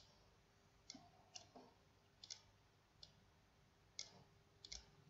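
Faint computer mouse clicks: about eight short, scattered clicks, a couple of them in quick pairs, as blocks are selected and dragged on screen.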